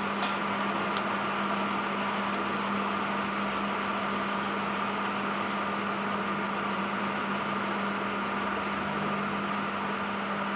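Marelli Model AC 36 ceiling fan running steadily: an even electric motor hum with a rush of moving air. A few faint ticks come in the first couple of seconds.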